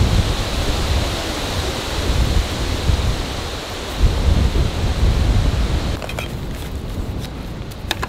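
Strong wind gusting through the trees and buffeting the microphone with a heavy low rumble. About six seconds in it gives way to quieter close-up handling of a soft cooler bag, with a few light clicks and rustles.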